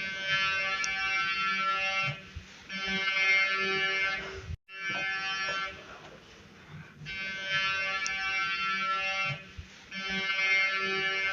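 Emergency alert alarm: a harsh buzzing tone rich in overtones, sounding in blasts of about two seconds. The blasts come in pairs, each pair starting about seven seconds after the last.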